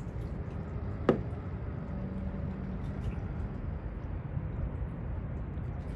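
Steady low outdoor rumble, with one sharp knock about a second in.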